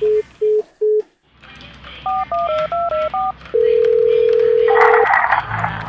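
Phone sounds: three short beeps as a call is hung up, then a quick run of about seven touch-tone keypad tones as a new number is dialled. A long steady ringing tone follows, then a short burst of noise as the line picks up.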